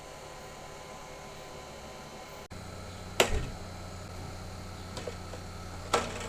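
Steady low hum with two sharp clicks or knocks, about three seconds apart, the first the loudest.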